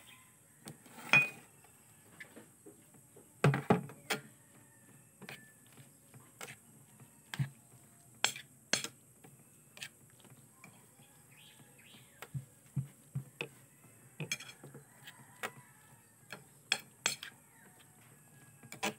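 Metal spoon clinking and scraping against a glass bowl while stirring ukoy batter, irregular sharp clinks. The loudest come about a second in and again around three and a half seconds in.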